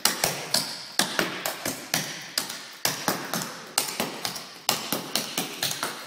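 Clogging shoes tapping on a wooden floor in the Grey Goose Pitter Patter step: quick, rhythmic taps, with a heavier strike about once a second followed by several lighter ones, repeating.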